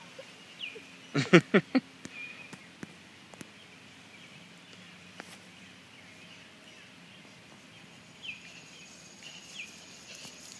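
Small birds chirping with short, scattered calls, over faint outdoor background noise. About a second in comes a quick run of several loud thumps, the loudest sound in the stretch.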